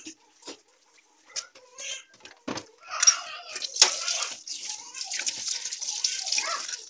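A few brief knocks and scrapes, then about three seconds in, tap water starts running into a stainless steel sink while a scrub sponge is rinsed under the stream.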